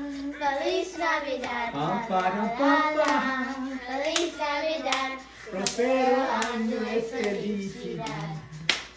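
Voices singing, children's among them, with hands clapping now and then. One sharp, loud clap comes near the end.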